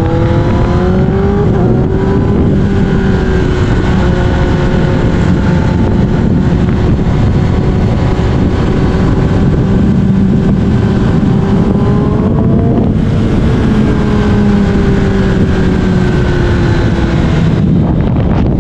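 Kawasaki ZX-10R inline-four running through an Austin Racing aftermarket exhaust under way. It revs up over the first second or so, holds a steady cruise, climbs briefly about twelve seconds in, then eases off with a slowly falling note.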